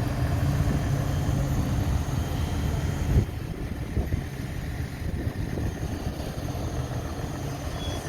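Diesel engine of the concrete-pouring machinery running steadily, with a thump about three seconds in; after the thump the engine sound is a little quieter.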